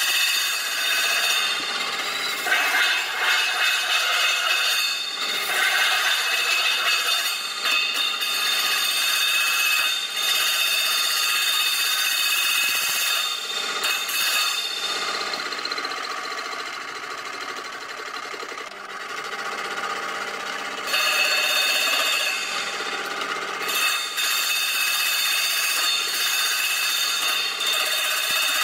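Crash cymbal spinning on a lathe while a hand-held cutting tool scrapes its rough grinder-cut edge: a harsh metallic scraping with the cymbal ringing in steady high tones. It eases off and loses its high ringing for several seconds around the middle, then comes back.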